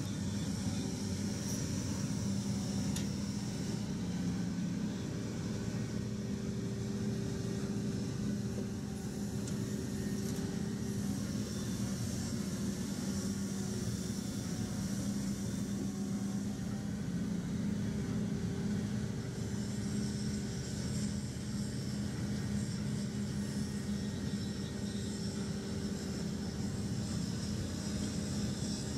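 Steady, even drone of diesel-driven dredging machinery: a pontoon-mounted hydraulic excavator working a submerged dredge head, with water churning around it.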